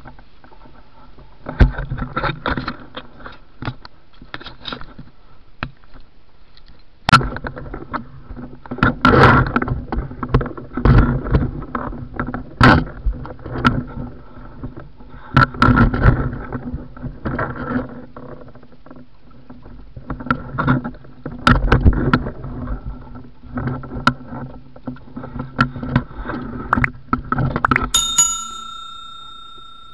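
Irregular knocks, bumps and splashes of someone moving through shallow water and handling gear beside a small wooden boat. Near the end comes a single bell-like ding from a subscribe-button animation.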